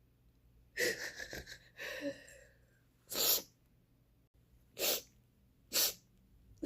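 A person's breath catching in a shaky, broken vocal sound, then three short sharp nasal bursts spaced a second or more apart.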